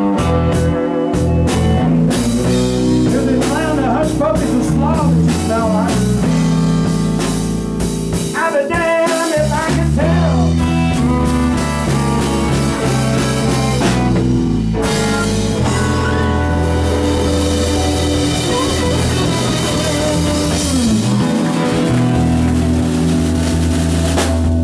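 Live blues band playing an instrumental stretch: electric guitar lead with wavering, bent notes over bass guitar and drum kit.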